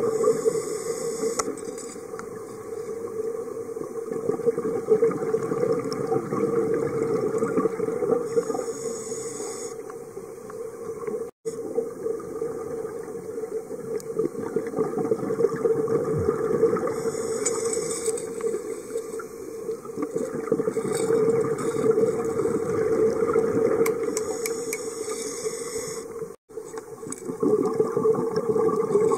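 Underwater sound of a scuba diver's breathing: a steady bubbling rush of exhaled air from the regulator, with a short hiss of inhaling through it roughly every eight seconds. The sound cuts out for an instant twice.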